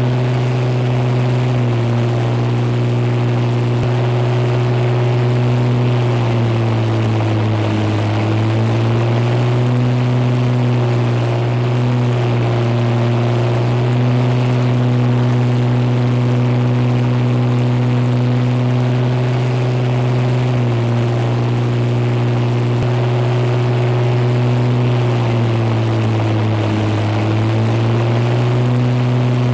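Spitfire's piston aero-engine droning steadily in flight, its pitch sagging briefly twice, about a quarter of the way in and again near the end.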